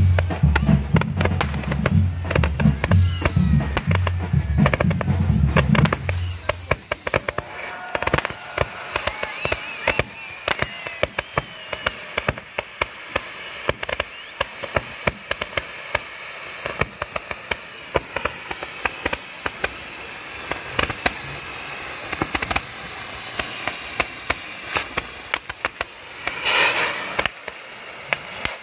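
Ground firework fountains hissing and crackling densely, with many small pops. For the first several seconds bass-heavy music plays over them along with a few falling whistles. Near the end comes a louder, brief burst of hiss.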